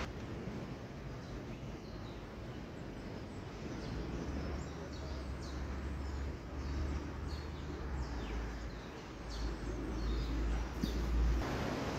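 Outdoor ambience: a low rumble that grows stronger in the second half and cuts off just before the end, with faint bird chirps over it.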